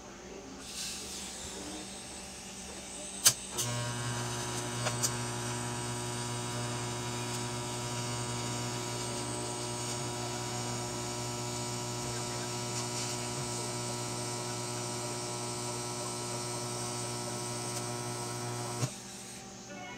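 TIG welding arc on steel: a sharp click, then the arc strikes about three and a half seconds in and buzzes with a steady electrical hum until it cuts off abruptly near the end.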